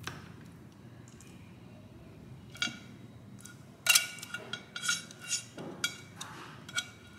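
Metal tongs clinking against the wire rack and glass bowl of a countertop convection oven as pieces of marinated pork are laid in: one click near the middle, then a quick run of sharp ringing clinks, the first of them the loudest.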